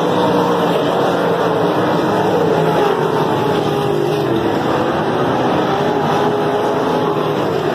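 A field of winged dirt-track sprint cars racing together, their V8 engines running hard, the engine notes rising and falling as the cars go round the oval.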